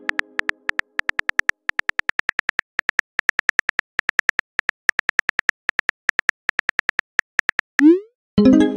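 Phone-keyboard typing clicks from a texting app, quick and even at several a second, as a message is typed out. Near the end comes a short rising swoosh as the message sends, then a ringing chime that fades away.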